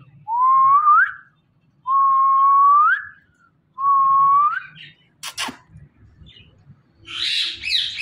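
Indian ringneck parrot whistling three clear notes, each held level and then sliding up at the end. A sharp click comes about five seconds in, and a harsh, noisy call near the end.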